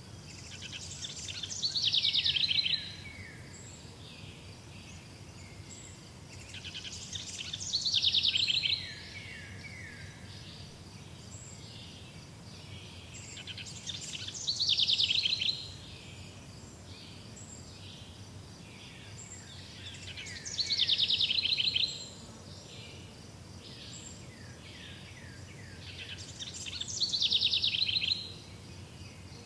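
A songbird singing the same short song five times, about every six seconds: each song is a fast trill that drops in pitch and ends in a few lower notes. A steady low background noise runs underneath.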